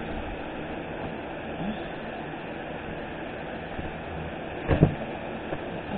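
A large cardboard shipping box being handled as its flaps are opened, with a brief thump about five seconds in, over a steady hiss.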